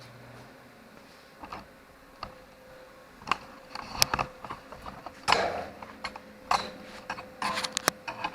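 Irregular knocks, taps and clatter of tools and sheet metal being handled at a workbench, getting busier after about three seconds. A low hum cuts out about half a second in.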